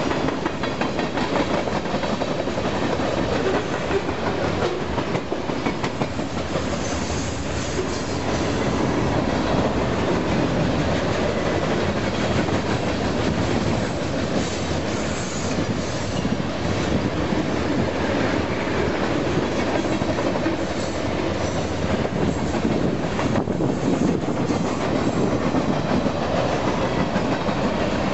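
Cars of a long freight train rolling past: a steady noise of steel wheels running on the rails.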